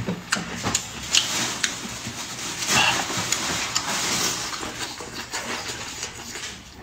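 Close, wet slurping and chewing of strips of spicy beef tripe, with the loudest slurp about three seconds in and a few sharp clicks of mouth and chopsticks.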